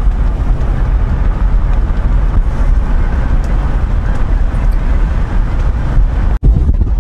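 Car driving slowly: a steady low rumble of engine and tyres, with wind buffeting the microphone. The sound cuts out for an instant near the end.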